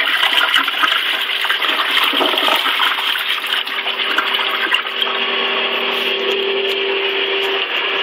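Crane Plumbing Galaxy toilet finishing its flush: water swirling and gurgling down the bowl, then the toilet refilling with a steady rush of water and a humming tone that grows clearer about five seconds in.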